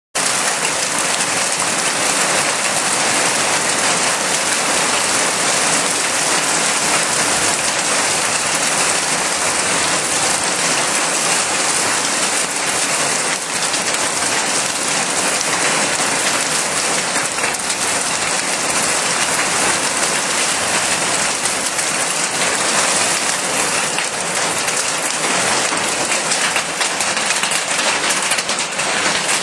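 Heavy hail falling: a dense, steady clatter of countless hailstones hitting the ground.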